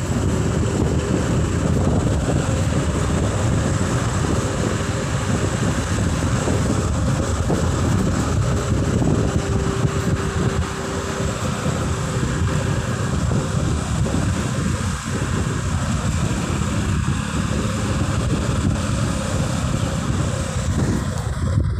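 Wind rushing over the microphone mixed with the steady engine and road noise of a motorbike being ridden, heard from the rider's seat.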